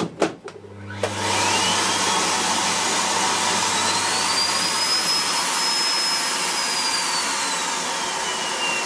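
A Miele S8 cylinder vacuum cleaner's motor switches on about a second in, after a couple of clicks, and runs noisily with its top covers and filters off. Its whine climbs over several seconds, holds, and then falls away near the end.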